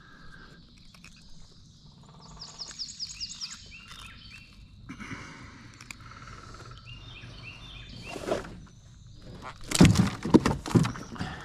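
Songbirds calling in the riverside trees, with a rapid run of high chirps about two seconds in and more calls a few seconds later. Near the end a burst of loud knocks and thuds as the freshly caught catfish is handled in the kayak.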